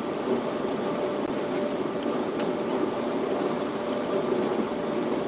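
Steady engine and road noise inside the cab of a truck at highway speed, with a faint steady tone running through it.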